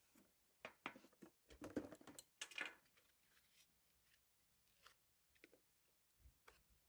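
Faint handling of cardboard packaging and foam end caps as a laptop is lifted out of its box: a cluster of short scrapes and knocks in the first three seconds, then a few faint ticks.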